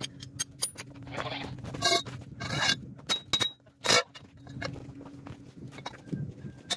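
Metal clinks and scrapes of a socket and long breaker bar being fitted onto a truck's wheel nuts, with a few sharp clanks around the middle, over a steady low hum.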